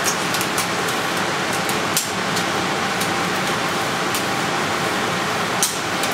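String mop being pushed back and forth across a tiled floor: a steady swishing hiss with a few light knocks and clicks, one near the end.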